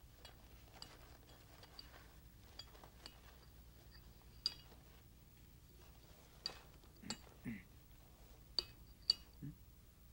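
Light, scattered clinks and taps of small hard objects on a tabletop, a dozen or so spread unevenly, the sharpest about halfway and near the end, with a couple of faint low murmurs between them.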